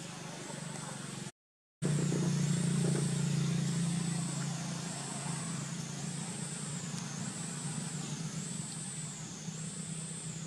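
A low, steady engine hum that cuts out for half a second about a second in, returns louder and slowly eases off, under a high whine that rises and falls over and over, about every second and a half.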